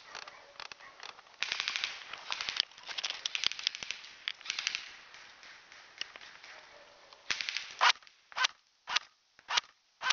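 Airsoft guns firing, with rapid runs of clicking shots about one and a half seconds in and again around three to five seconds in. Near the end come several louder single sharp cracks about half a second apart.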